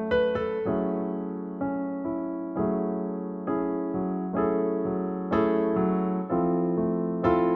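Background music: slow, gentle piano chords, a new chord struck about once a second and left to fade.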